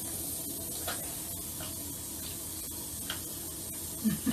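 Steady hiss of water running from a handheld shower head in a tub, with a few faint wet clicks from a boxer dog licking peanut butter.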